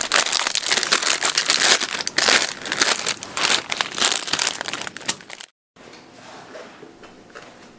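Plastic Buldak instant-noodle packet crinkling loudly as hands handle and tear it open, continuing for about five seconds and then cutting off suddenly. After that only a faint, steady room tone remains.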